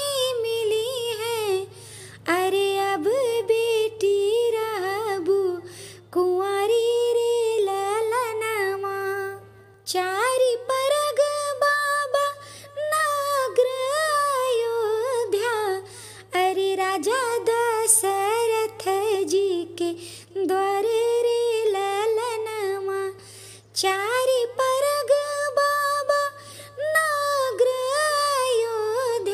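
A woman singing an Awadhi vivah geet (traditional wedding folk song) solo, in melodic phrases of a few seconds with short breaks between them, over a steady low hum.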